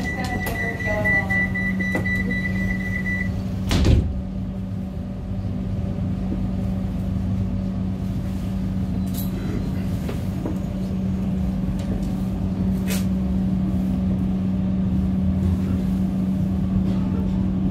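Steady hum inside a passenger train carriage. A steady high warning beep sounds for about the first three seconds, then a single loud thud about four seconds in as the train doors shut at the end of boarding.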